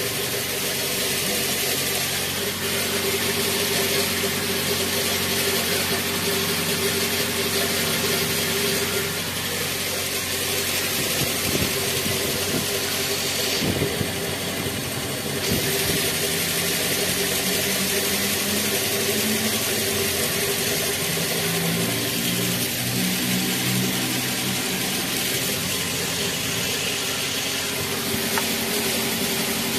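Suzuki SX4's 1.6-litre M16A four-cylinder petrol engine idling steadily shortly after a cold start, heard from the open engine bay.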